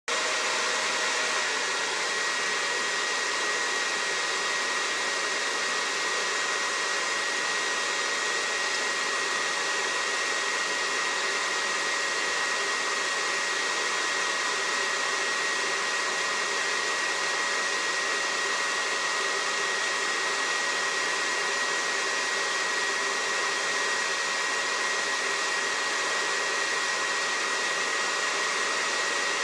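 Heat gun blowing steadily: an even rush of air with a thin, high, steady whine.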